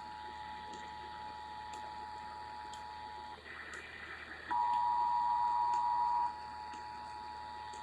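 Emergency Alert System two-tone attention signal sounding steadily. About three and a half seconds in it breaks into a short, higher buzzy data burst, then a louder single steady tone for nearly two seconds, and the two-tone signal comes back. Faint ticking clicks run underneath.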